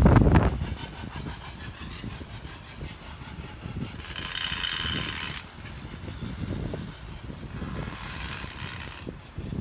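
Wind rumbling on the microphone, loudest in the first half second and then weaker and uneven. A brief hissing sound comes about four seconds in and lasts just over a second, and a fainter one follows near the end.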